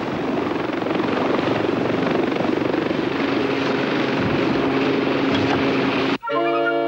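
Helicopter landing on a ship's flight deck: loud rotor and engine noise, with a steady hum coming in about halfway. Near the end it is cut off abruptly by brass music.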